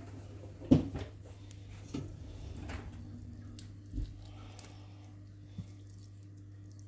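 A Siberian cat eating cooked chicken from a hand while fingers pull wet meat apart, with squishing and chewing noises and a few knocks, the loudest about a second in. A steady low hum runs underneath.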